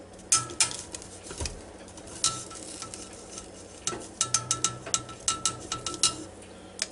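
Metal tongs clicking and clinking against the Ninja Foodi's air-fryer basket as ears of corn are turned over, some clicks followed by a short ringing note. A few clacks come early, then a quick run of clicks between about four and six seconds in.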